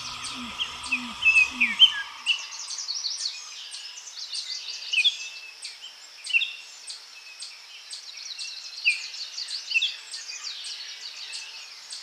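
A dense chorus of small birds chirping and singing, many short high chirps overlapping without pause. Soft ambient music with low held tones fades out in the first two seconds.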